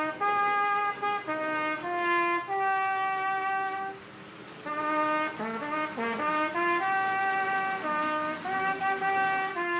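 Solo trumpet playing a train-song melody in held notes, with a short pause about four seconds in followed by a quick run of notes.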